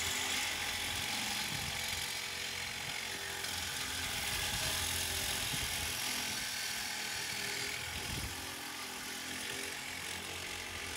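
Cordless power tool running steadily as it cuts into a scrap car's exhaust pipe to take off the catalytic converter.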